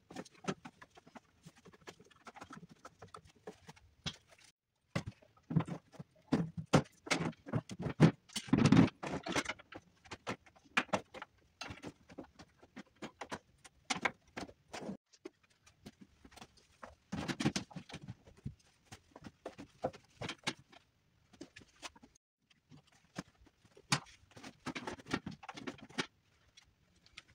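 Rapid, irregular clatter of tools and metal and plastic parts being handled during snowmobile reassembly, sped up by time-lapse, with several abrupt cuts.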